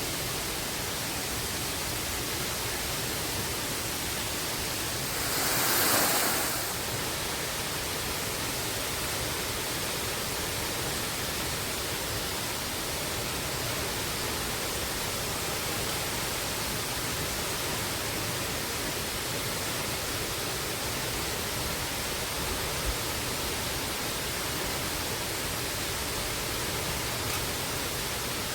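Steady, even rush of a waterfall, with a brief louder swell of hiss about six seconds in.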